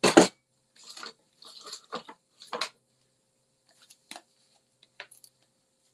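Craft paper and a plastic sheet being handled on a tabletop. A sharp knock comes right at the start, then a run of short rustles and crinkles over the next couple of seconds, and a few small clicks later on.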